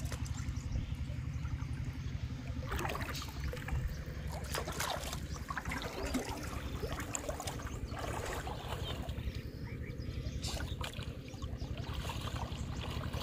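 Shallow pond water splashing and sloshing irregularly as a person wades through it, over a steady low rumble.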